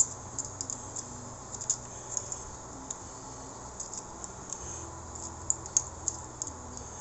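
Scattered light clicks and taps of small metal parts being handled and fitted by hand, over a steady low hum.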